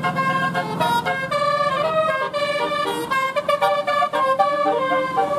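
Indonesian 'telolet' bus horn: a multi-tone musical horn playing a fast tune of short notes that jump from pitch to pitch.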